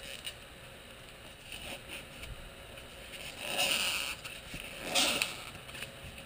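Utility knife cutting and scraping through pink rigid foam insulation board. There are light scratching sounds, then two louder scratchy strokes about three and a half and five seconds in.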